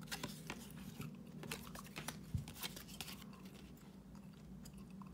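Cardboard hockey trading cards handled and slid past one another in the hands: a quick run of faint flicks, ticks and rustles of card stock, mostly in the first three seconds or so.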